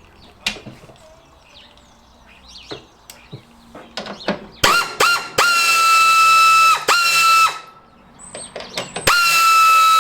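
Pneumatic air ratchet undoing a 13 mm bolt: a few short blips about halfway through, then runs of a steady high whine with air hiss, the last starting near the end.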